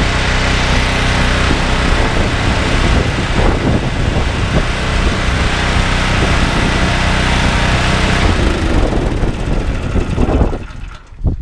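Loncin G420 single-cylinder petrol engine on a belt-driven pressure washer running steadily, with no water being sprayed. It cuts out near the end, when the engine is shut off.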